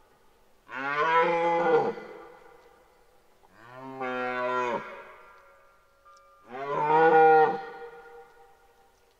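Red deer stag roaring in the rut: three long, deep roars, about one every three seconds, each dropping in pitch as it ends.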